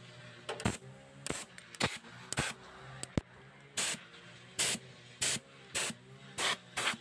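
About a dozen short, irregular bursts of compressed air hissing from a metal blow nozzle, fed by a small 12-volt compressor with a fire-extinguisher air tank, dusting out the inside of a desktop computer.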